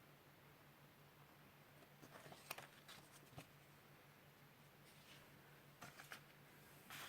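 Faint clicks and rustles of a CD and its case being handled, over a low steady hum.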